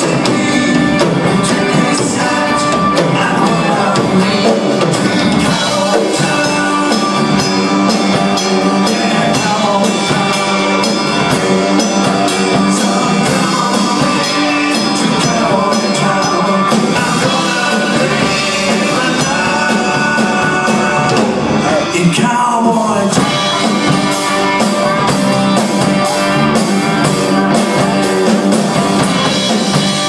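Live country-rock band playing, with electric and acoustic guitars, bass guitar and a drum kit, and a lead vocal over the top.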